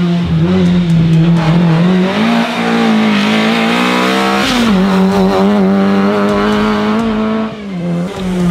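Lada 2101 rally car's four-cylinder engine running hard at high revs as the car drives through the corner, the pitch rising and falling a little with the throttle.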